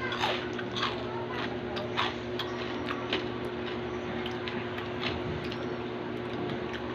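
Close-mic chewing and crunching of crispy chicharon (fried pork rind) and pork fat: sharp crunches come thickly for about three seconds, then thin out. A steady low hum runs underneath.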